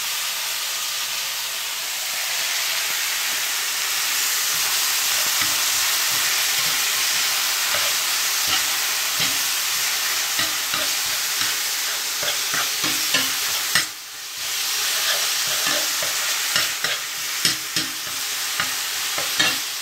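Minced meat sizzling as it browns in oil in a hot frying pan, with a spatula scraping and tapping against the pan as the meat is stirred and broken up. The sizzle dips briefly about two-thirds of the way through.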